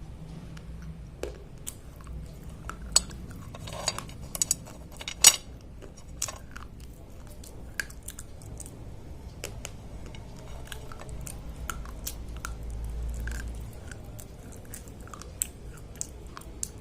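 Slate pencils being bitten and chewed: sharp crunches and crackles, thickest a few seconds in, then sparser clicks of grinding chalky stone between the teeth.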